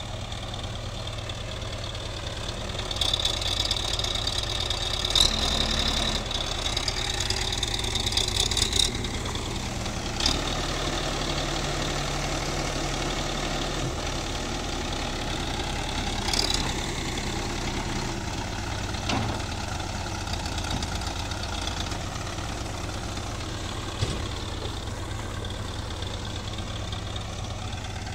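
Case backhoe loader's diesel engine running at idle just after starting, a steady low rumble. It gets louder for several seconds about three seconds in, with a high whine over it, and a few sharp clicks come later.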